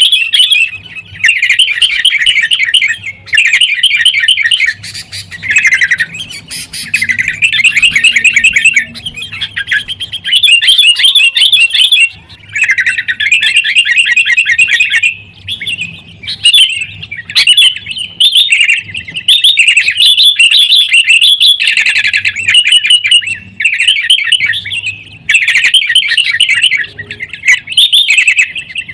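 Sooty-headed bulbuls calling in fast, harsh chattering phrases, one after another with short breaks. It is the agitated calling of bulbuls sparring.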